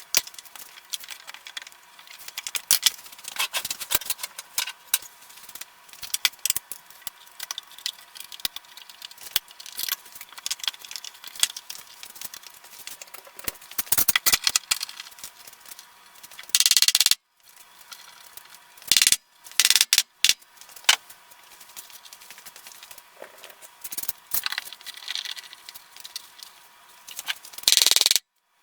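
Irregular clicking and light metallic rattling, like small hardware or tools being handled, broken by a few sudden cuts to silence.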